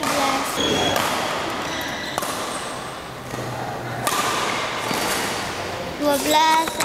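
Badminton rally sounds in an echoing sports hall: rackets striking the shuttlecock and court shoes squeaking on the floor.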